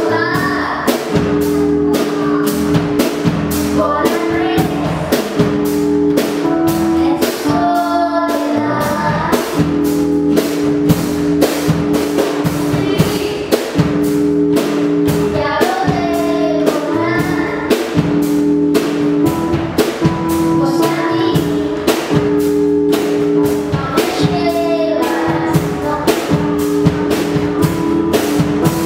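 A children's band playing a song: a girl sings the lead over a drum kit keeping a steady beat, acoustic guitar and held keyboard chords.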